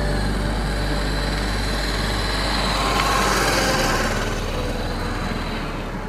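Honda CB500X motorcycle's parallel-twin engine riding past, growing louder to a peak about three seconds in and then fading, with a thin high steady whine running through it.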